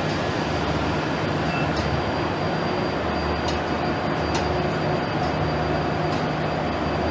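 Renfe Talgo passenger coaches rolling slowly along the platform: a steady rumble and hum with a thin high whine, and a few sharp clicks from the wheels and running gear.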